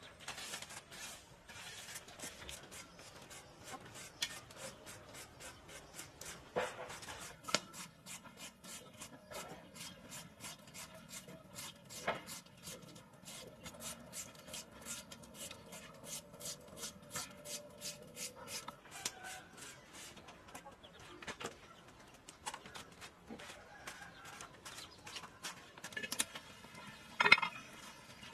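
Handheld julienne shredder scraping through a firm green fruit in quick, repeated rasping strokes, with a few louder knocks near the end.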